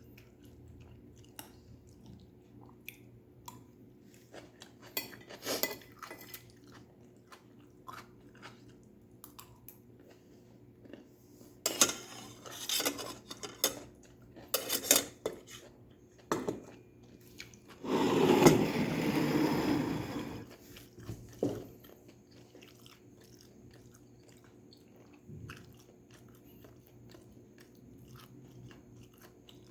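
Close-miked chewing and crunching of stir-fried vegetables, with scattered small clicks and several louder clusters of bites. The loudest is a longer burst of about two seconds, some 18 seconds in.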